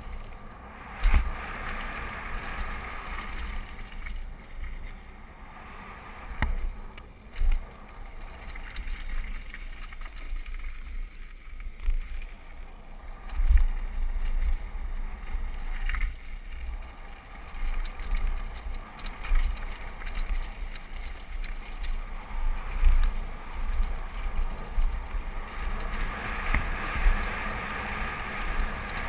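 A mountain bike rolling fast down a dirt and gravel downhill trail. Wind buffets the on-bike camera's microphone in uneven low rumbles, over a steady rush of tyres on loose ground, with a few sharp knocks from the bike hitting bumps.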